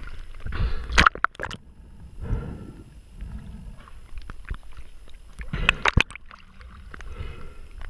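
Water rushing and gurgling around a camera held underwater, with scattered sharp clicks and knocks. There are two louder noisy bursts, about a second in and again near six seconds.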